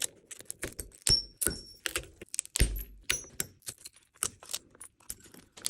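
Irregular run of sharp clicks and cracks from an iPhone's shattered back glass being crunched and chipped away with a tool. A few of the snaps carry a brief high ring.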